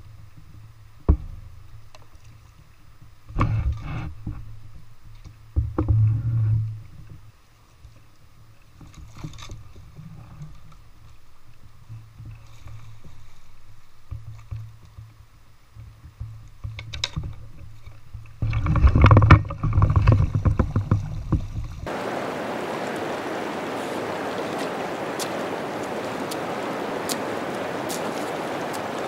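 Paddling a canoe through moving water: scattered knocks and splashes of the paddle against the canoe and the river, loudest about 19 to 20 seconds in. About 22 seconds in, the sound cuts to a steady rush of shallow river rapids running over rocks.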